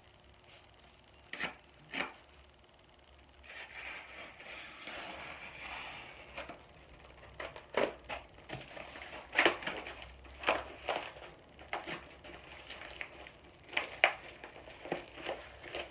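Packing material being torn and pulled off a boxed tool by hand: two sharp knocks, then rustling, then a long run of sharp crinkling crackles.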